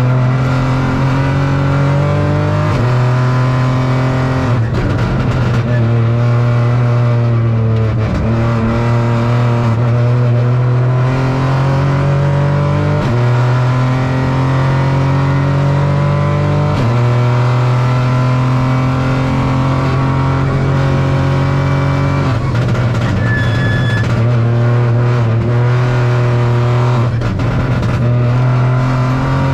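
Opel Corsa Rally4's turbocharged three-cylinder engine heard from inside the cockpit at stage pace, repeatedly revving up and dropping in pitch through quick gear changes.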